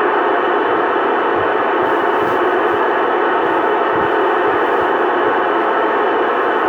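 Two-way radio receiver hissing steadily with band noise (static) from its speaker between transmissions, with no station coming through.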